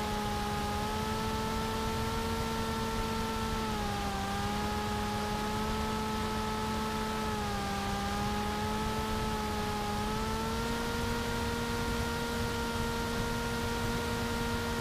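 Brushless electric motor and pusher propeller of a TBS Caipirinha flying wing in flight, heard from the onboard camera as a steady buzzing drone over a rush of wind. The pitch dips slightly twice and then rises again near the end as the throttle changes.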